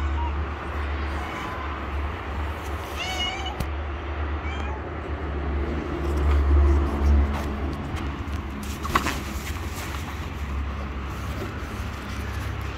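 Calico stray cat meowing: one clear, bending meow about three seconds in and a fainter short one a moment later. A steady low rumble runs underneath and swells briefly past the middle, and there is one sharp click about two thirds of the way through.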